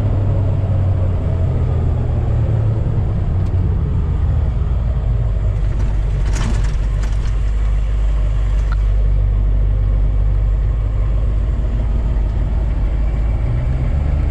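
Steady low rumble of a car being driven, heard from inside the cabin, with a brief rush of noise about six seconds in.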